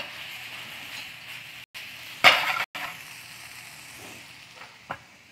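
Mycoprotein pieces in a soy glaze stir-frying in a nonstick frying pan, sizzling steadily, with a loud, sharp burst of sizzle and pan noise a little over two seconds in. The sound cuts out briefly twice around that burst.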